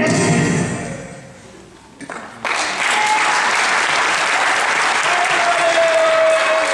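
The tail of the song's music fades out in the first second or so; then, after a short lull, a congregation breaks into steady applause from about two and a half seconds in.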